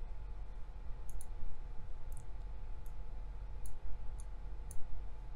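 Computer mouse clicking, several separate sharp clicks a second or so apart, over a steady low electrical hum.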